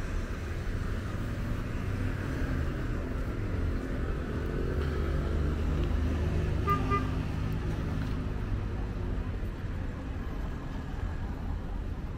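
A motor vehicle passing on the street with its engine running, swelling and fading over several seconds. About seven seconds in come two quick, short high beeps.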